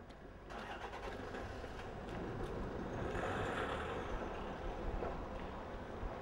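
A car's engine and road noise swelling to a peak about three seconds in, then fading.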